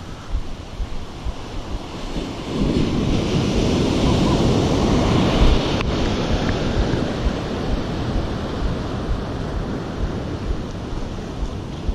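Ocean surf breaking and washing up a sandy beach, with wind buffeting the microphone. A wave swells in about two and a half seconds in, is loudest around five seconds, then eases back to a steady wash.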